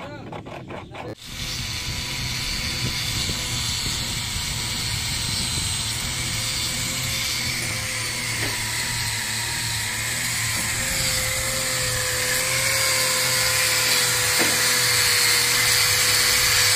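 A few quick scraping strokes, then about a second in an electric angle grinder with an abrasive disc starts and runs steadily with a whine, grinding at a plastic fog lamp housing.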